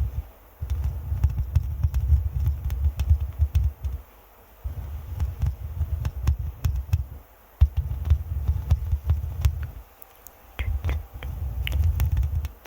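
Scratching and rubbing directly on an ASMR microphone, heard as a dense low rumbling scrape. It comes in four stretches of two to three seconds each, with short pauses between.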